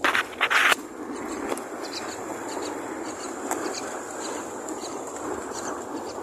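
A loud rustling burst under a second long, then a steady rushing noise with faint, short, high chirps repeating over it, typical of baby birds begging in a nest.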